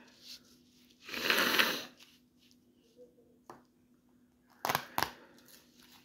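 Hands handling objects on a tabletop: a loud rustling scrape about a second in, lasting about a second, then a few sharp knocks, two close together near the end.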